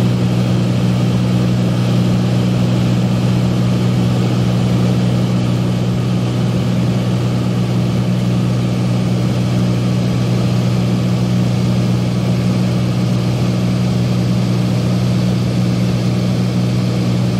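Cessna airplane's engine and propeller running steadily in flight: a constant low drone with no change in pitch.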